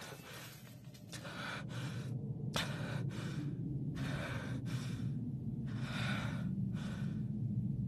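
An exhausted anime character panting hard: a string of loud, ragged breaths about once a second, over a low rumble that swells from a few seconds in.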